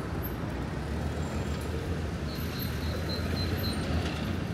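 Street traffic, with a large motor vehicle's engine rumbling steadily close by. A few faint high-pitched notes sound about halfway through.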